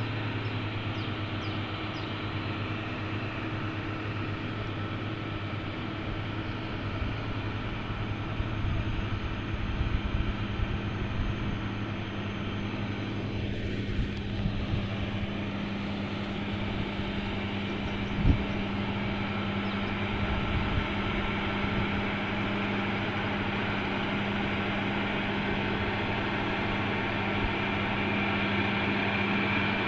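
Heavy truck engine running steadily with a low hum, with a few knocks and one sharp knock about two-thirds of the way through.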